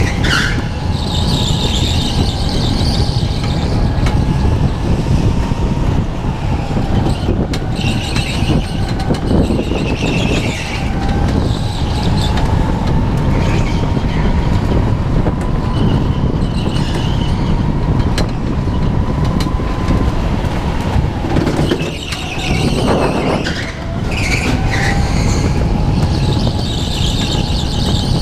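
Go-kart driven at speed, heard from onboard: a steady low rumble with a motor tone that drifts slowly up and down, and tyres squealing through the corners every few seconds.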